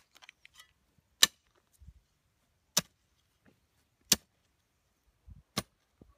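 Metal garden hoe chopping into dry soil to dig a furrow: a row of sharp strikes about every second and a half, with soft thuds of earth in between.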